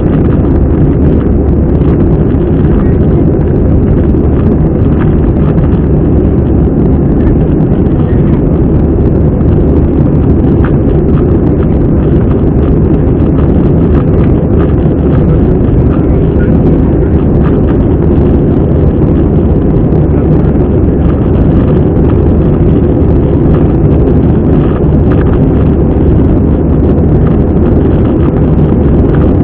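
Steady cabin rumble of an Airbus A320 climbing out: engine and airflow noise heard inside the cabin beside the wing, deep and loud and even throughout.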